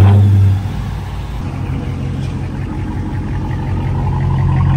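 Dodge Challenger R/T's 5.7-litre HEMI V8 starting up: a loud flare right at the start, then a steady, deep idle that grows gradually louder.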